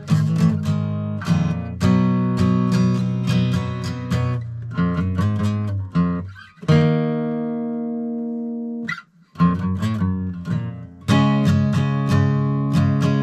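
Guitar played with a capo at the first fret: picked notes and strummed chords, with one chord left to ring out for about two seconds midway, a brief stop, then strumming again.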